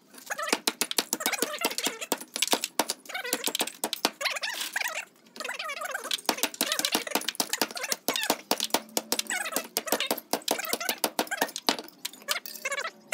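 Hatchet blows chopping copper tube stubs and aluminium from a salvaged air conditioning coil's perforated end plate on a wooden stump, sped up by fast-forwarding into a rapid run of sharp metallic strikes, several a second. High, chirpy warbling sounds, like a sped-up voice, come between the blows.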